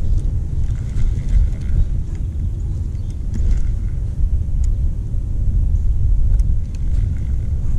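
Wind buffeting the camera's microphone outdoors: an uneven low rumble that rises and falls, with a few faint ticks over it.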